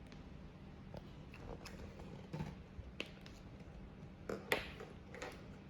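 Faint scratches and taps of a marker drawing lines on paper, in short irregular strokes, with a louder scrape about four and a half seconds in.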